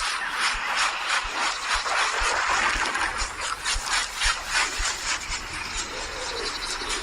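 Realme X7 Max smartphone's stereo speakers playing back a video's soundtrack: a dense hissing noise with frequent clicks and irregular low thuds.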